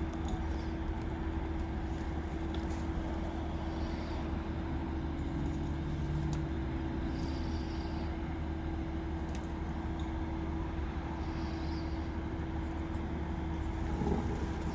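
A large mobile crane's diesel engine running steadily at a constant speed, giving a deep hum with a fixed droning tone above it.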